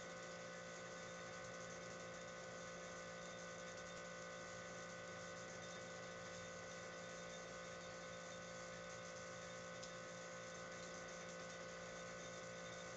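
Steady electrical hum made of several unchanging tones over a faint hiss, without change or break.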